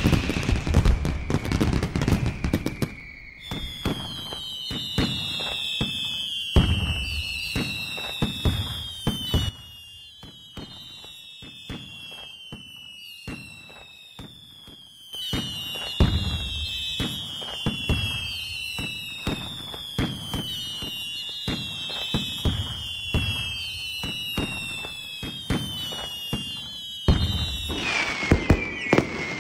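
Fireworks going off in rapid succession: dense bangs and crackling, with a falling whistle recurring every second or two. There is a quieter stretch about a third of the way in before the barrage picks up again.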